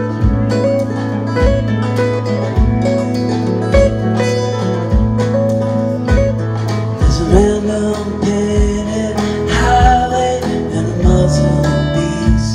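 Live band playing a slow song: acoustic guitar picking over electric bass, with a soft kick drum about once a second.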